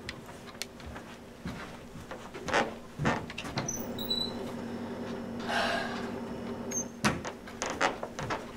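Wooden cabinet doors being handled, with several knocks, a few short high squeaks around the middle and a rustle, over a steady low room hum.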